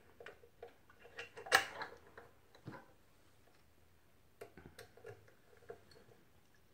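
Light metal clicks and ticks of snap-setting dies being handled and fitted into the head of a hand press, with one sharper click about one and a half seconds in and a few more small ticks a little past the middle.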